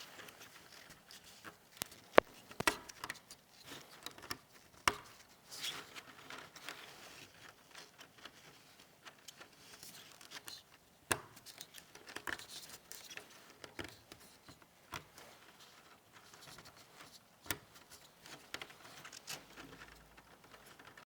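Irregular clicks and taps of computer parts being handled and fitted together, with light rustling between them. The sharpest click comes about two seconds in.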